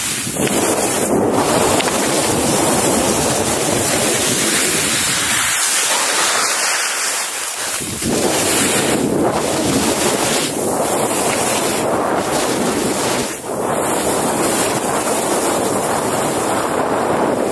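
Skis hissing and scraping as they carve through soft, slushy snow, mixed with wind buffeting the microphone; the noise eases briefly about halfway through and again with a short dip near the end.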